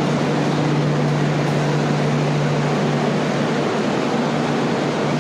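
Steady mechanical noise with a constant low hum, unchanging throughout.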